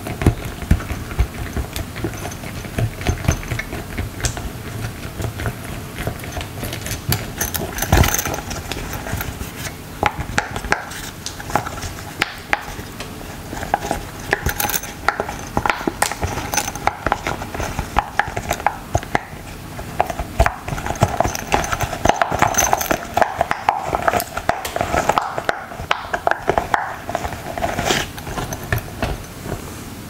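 Silicone pop-it fidget toy bubbles being pushed in with the fingers: many short pops and clicks in a quick, uneven run.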